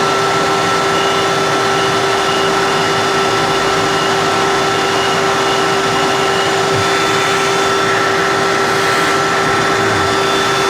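Shop vacuum running steadily: a constant whine over a rush of air.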